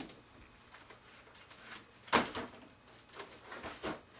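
Handling noises: a few brief rustles and knocks as objects are picked up and moved. The loudest comes about two seconds in, with smaller ones near the end.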